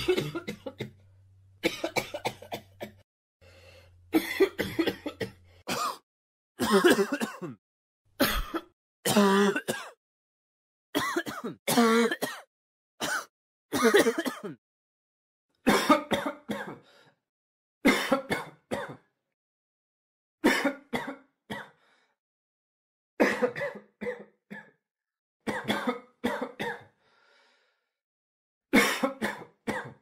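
A person coughing and clearing their throat in a series of separate bouts, each about a second long, with short silent gaps between them.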